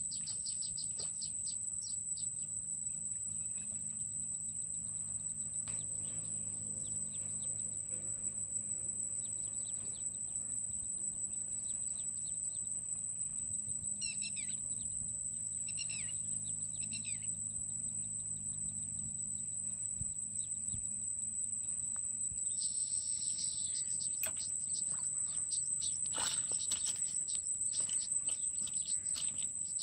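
Outdoor pond-side ambience: a steady high-pitched insect drone with short bird chirps and a low hum underneath. Near the end, a run of sharp rustles, knocks and splashes as a fish is pulled out of the water on a pole line.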